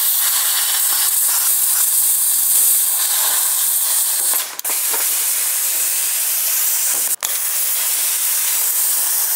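Plasma cutter running with a loud, steady hiss as it cuts through the car body's sheet metal. It breaks off briefly about four and a half seconds in, and again for an instant about seven seconds in.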